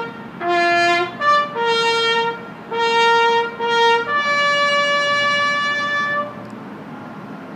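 A solo brass horn plays a bugle call: short notes stepping among three pitches, then a long held final note that stops about six seconds in.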